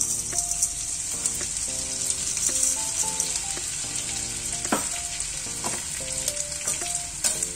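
Edible gum (gond) frying in hot ghee, a steady sizzle as the small pieces puff up. Soft background music with short melodic notes plays underneath.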